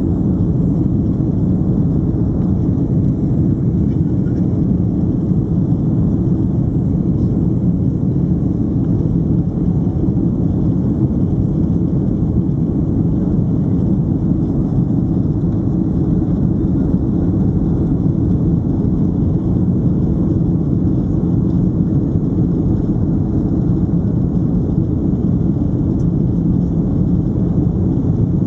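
Steady cabin noise of a Boeing 767-300ER in climb after takeoff: engine and rushing-air noise heard inside the passenger cabin, low and even throughout.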